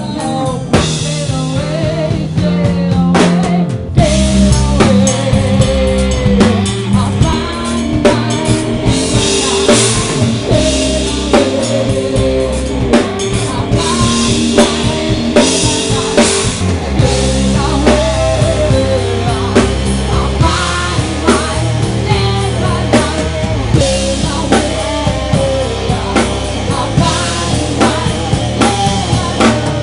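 Rock band playing live: a woman singing over electric guitar and a drum kit, picked up by the camera's own microphone.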